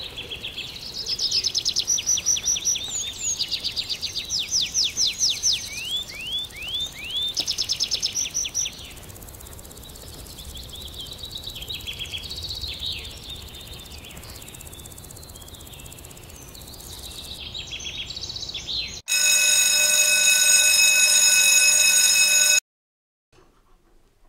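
Songbirds singing: fast repeated trills and chirps, strongest in the first nine seconds, softer calls after. Near the end a loud steady electronic tone with a buzzing edge sounds for about three and a half seconds and cuts off abruptly.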